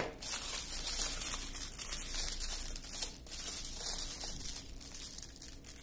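Small plastic bags of diamond painting drills crinkling as a strip of them is handled, a continuous crackle with small clicks.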